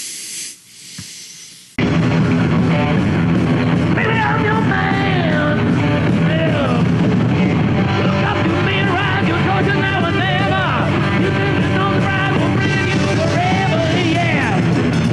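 A heavy metal band playing live, with electric bass, drums and guitar, cutting in abruptly about two seconds in after a short hiss. A male lead singer comes in over the band a couple of seconds later.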